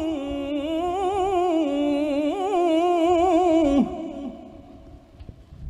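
A male Quran reciter's voice, amplified through a handheld microphone, holds a long melismatic note in the tilawah style with wavering ornaments. About four seconds in the note falls away and stops, and the hall's echo fades.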